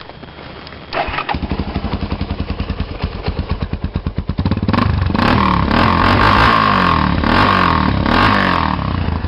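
Yamaha Raptor 350 ATV's single-cylinder four-stroke engine starting about a second in and idling, then revved several times before settling back to idle near the end. It breathes through an HMF Performance Series slip-on exhaust with the quiet core installed.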